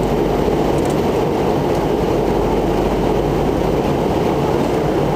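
Steady cabin roar of a McDonnell Douglas MD-88 airliner in flight, the noise of its rear-mounted Pratt & Whitney JT8D turbofans and the airflow over the fuselage heard from inside the cabin. It is a low, even rumble that holds the same level throughout.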